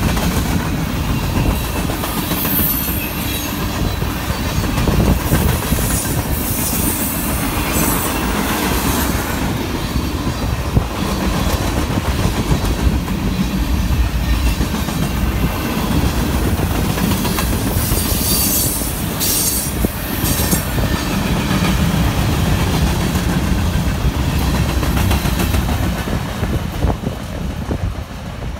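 Freight cars of a mixed freight train rolling past close by: a steady heavy rumble of steel wheels on the rails with clickety-clack over the joints, growing quieter near the end.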